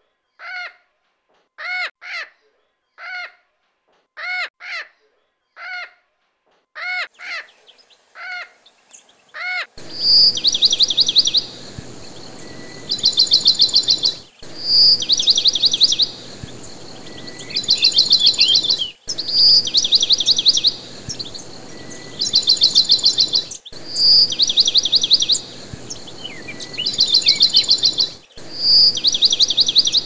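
Bird calls: first a string of short calls with many overtones, one or two a second, which stops about nine seconds in. Then, over a steady hiss, a high song phrase repeats every four to five seconds: a clear note followed by a fast trill.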